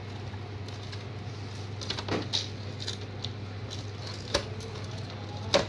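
Scattered light clicks and knocks of plastic parts and scanner glass being handled as the flatbed scanner of an HP LaserJet MFP M233 is taken apart, with the loudest knock near the end.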